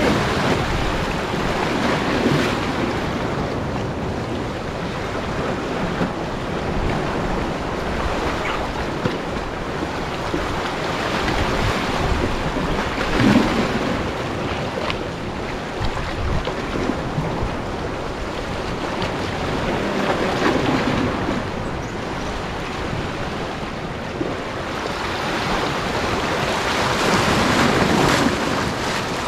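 Small sea waves surging and washing over a rocky shoreline, swelling and falling back every few seconds, with wind buffeting the microphone.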